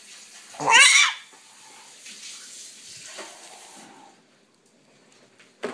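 A baby's short, loud squeal that rises in pitch about a second in, followed by a steady hiss that stops about four seconds in.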